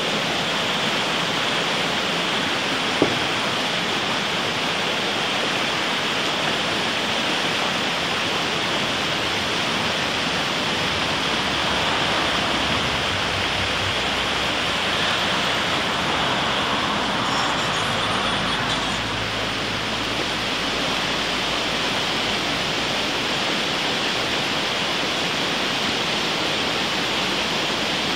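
Steady rushing noise of a fast-flowing stream, even throughout, with one short click about three seconds in.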